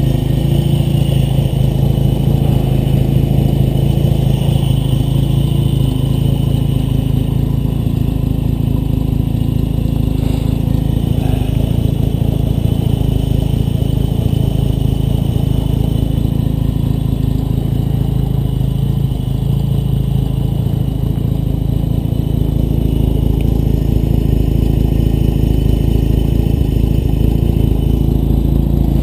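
1954 Dodge M37 Power Wagon's flathead straight-six engine idling steadily.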